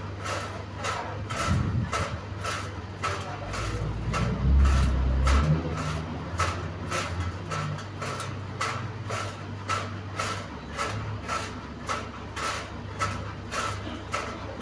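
Turbine fan running with a steady low hum and an evenly repeating click about twice a second, the strange noise it is making. A louder low rumble comes in around four seconds in and fades by six.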